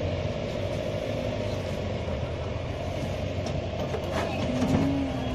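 Steady low rumble of an idling truck engine, with a short clatter about four seconds in as a bull jumps down from the truck bed onto the lowered metal tailgate ramp.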